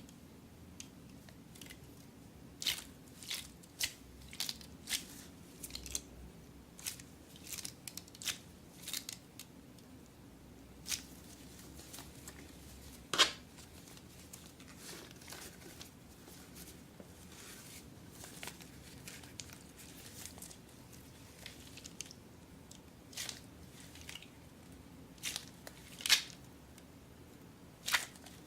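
Scattered short, sharp snips and crackles from hands working craft materials, a couple of dozen spread out with quiet between. The loudest comes a little past halfway, another near the end.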